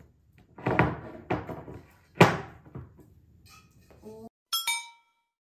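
Knocks and thuds of desk parts being handled during hand assembly, the loudest about two seconds in. Near the end comes a short ringing ping.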